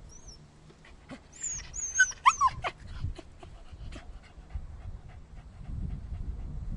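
Dog yelping and whimpering: a quick cluster of short, high-pitched cries with sliding pitch about a second and a half in. A low rumble rises near the end.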